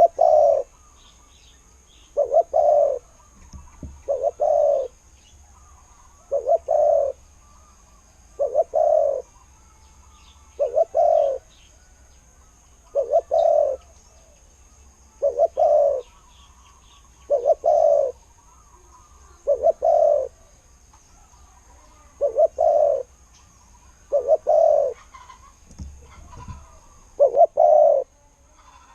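Spotted dove cooing: a low coo phrase of under a second, repeated steadily about every two seconds. Faint chirps from small birds and a steady high-pitched whine sit behind it.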